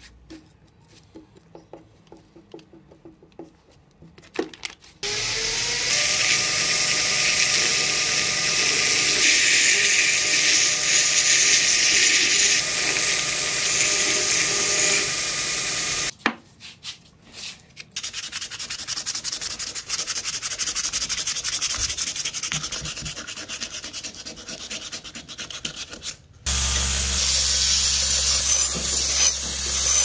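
Belt grinder sanding a wooden knife handle: a steady, loud hiss with a faint whine over it, cutting off abruptly twice. The first few seconds are quiet apart from light clicks and taps. Near the end the sound changes to a deeper hum as a steel piece is ground on the belt.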